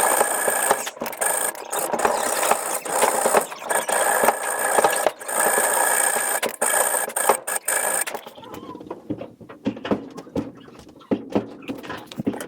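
Steel knife blade being ground or filed: a continuous loud scraping that breaks off briefly now and then and stops about eight seconds in, followed by light clicks and handling scrapes.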